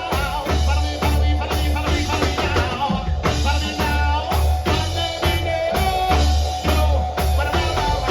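Live band music with a heavy bass line and drum kit keeping a steady beat.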